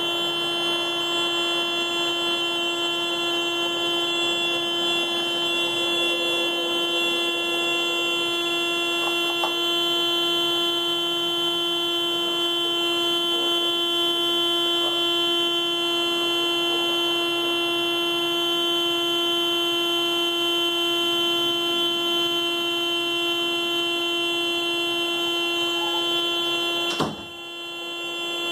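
Car alarm sounding the horn in one continuous, unbroken tone that does not stop. It dips briefly near the end and then carries on.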